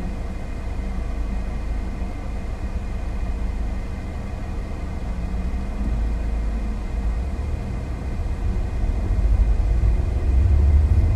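Car road noise heard from inside the cabin: a steady low rumble of engine and tyres, growing louder near the end as the car picks up speed.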